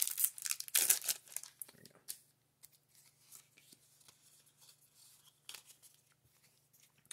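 Foil booster-pack wrapper crinkling loudly for about a second as the cards are pulled out, with another short crinkle about two seconds in. Then faint clicks and rustles of playing cards being handled.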